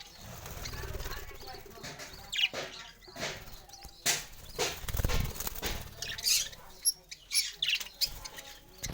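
Small birds chirping in short, scattered calls, mixed with brief rustling and fluttering sounds.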